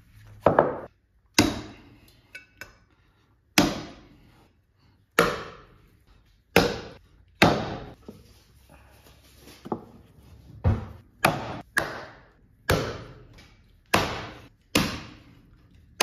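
Chinese meat cleaver chopping through lamb ribs and bone on a wooden tree-stump chopping block: about fifteen heavy single strikes, roughly one a second, each with a brief ringing tail.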